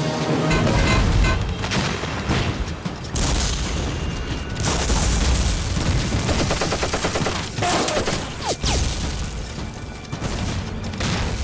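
Battle sound effects: shell explosions going off one after another, mixed with bursts of gunfire, with a falling whistle about eight seconds in.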